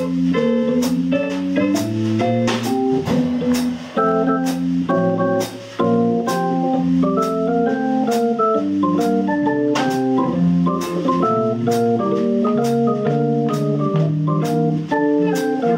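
Jazz trio playing a slow piece: sustained organ-sounding chords from an electronic keyboard, with electric guitar and a drum kit whose cymbal strokes fall about twice a second.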